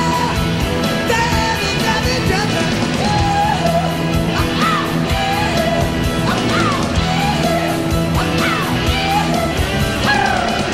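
A hard rock band playing live, with electric guitars, bass and drums. The singer yells and wails over the band, and sliding high notes recur about every two seconds.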